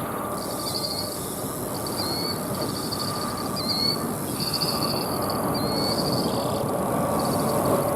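A songbird repeating a short, high chirp and trill phrase roughly once a second, over a steady low rushing background noise.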